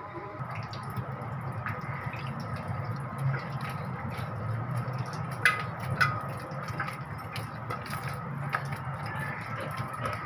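Hands kneading wet wheat-flour dough in a steel bowl: soft squishing of the dough, with scattered small clicks and two sharper ones about halfway through.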